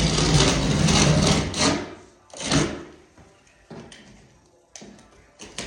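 Utility knife blade scraping as it scores along a plaster wall corner, a long scratchy stroke for about the first two seconds and a shorter one about halfway, followed by a few light clicks.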